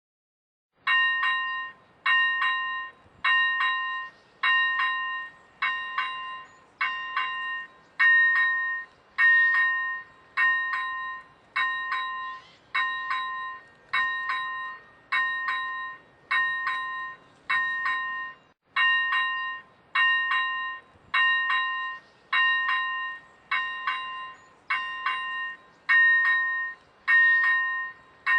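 Czech railway level-crossing warning bell ringing: a bright, decaying electronic chime repeated about every 0.8 seconds, signalling that a train is approaching. It starts about a second in and breaks off for a moment a little past the middle.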